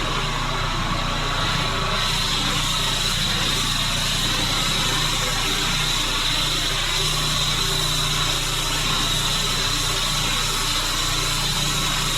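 Pressure washer running steadily, its engine drone under a constant hiss of water spray.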